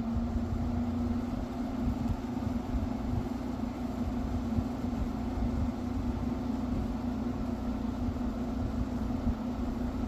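GE window air conditioner running on its low fan setting with the compressor on: a steady hum over even fan air noise and a low drone.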